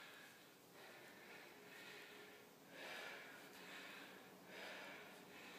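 Faint, heavy breathing of a woman doing rapid air squats, with a hard breath every second or two.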